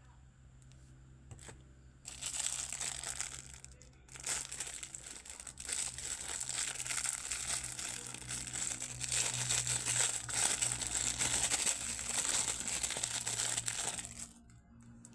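Packaging being crinkled and torn open: a dense crackling that starts about two seconds in, breaks off briefly, then runs on until about a second before the end.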